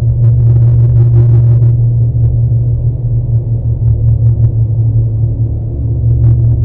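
A loud, steady low drone with fainter tones layered above it and faint scattered crackles.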